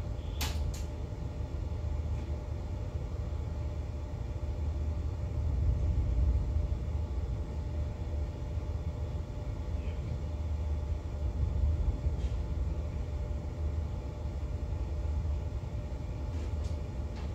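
Steady low rumble of the superyacht's engines and onboard machinery running during berthing, with a short sharp click about half a second in and a couple of fainter clicks later.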